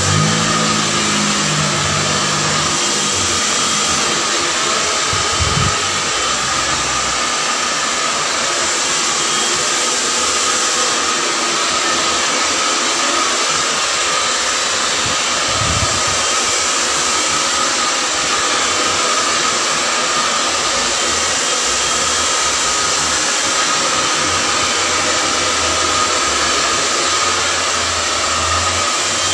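Handheld hair dryer running steadily, a constant rush of air with a steady motor tone, as it blows hair dry.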